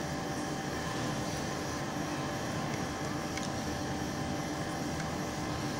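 Steady machine hum and hiss with a few faint steady tones, with a couple of faint ticks.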